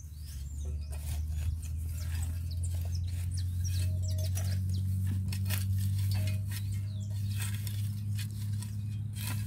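Metal hoe blade scraping and knocking into dry soil while filling in around a planted palm seedling, in many short irregular strokes. A steady low hum runs underneath, with a few bird chirps.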